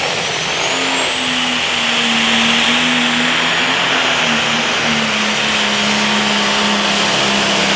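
John Deere pro stock pulling tractor's turbocharged diesel running hard under load on a pull, with a high, steady turbo whistle over the engine note. The engine note eases slightly lower as the pull goes on.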